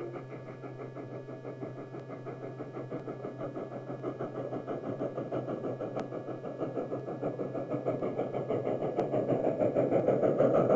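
Steam locomotive working up a grade: rapid, even exhaust chuffs, several a second, growing steadily louder as it approaches.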